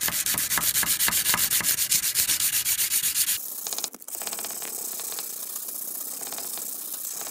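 A steel knife blade being hand sanded with oiled sandpaper wrapped on a block: rapid back-and-forth rubbing strokes, several a second. A little over three seconds in, the strokes turn quieter and finer.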